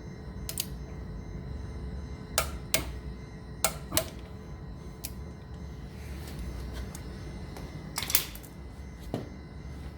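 Several sharp clicks and taps of hand tools and brake parts being handled, about seven in all, with two quick pairs in the first half, over a steady low hum.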